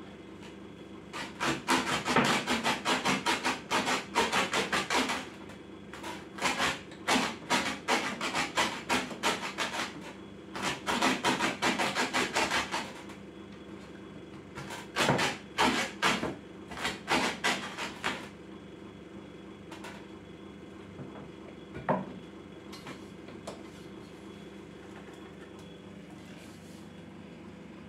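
Small kitchen hatchet finely chopping green cabbage leaves on a wooden cutting board: several runs of quick, sharp knocks over the first eighteen seconds. The chopping then stops, leaving one single knock later on.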